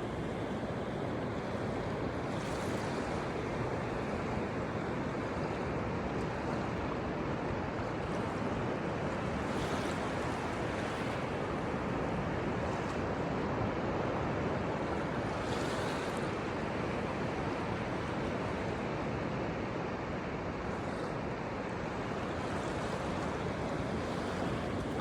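Mediterranean Sea waves washing on the shore: a steady rush of surf with several brief, hissier washes as waves break.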